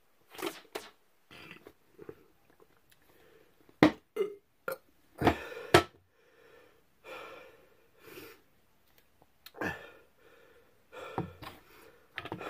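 A person burping several times after chugging carbonated soda. Short sharp clicks and knocks come in between the burps.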